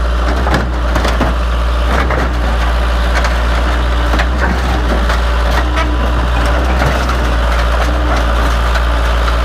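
Case 580 backhoe's engine running steadily under load while its bucket breaks up a stake body truck, with irregular cracking, crunching and knocking throughout.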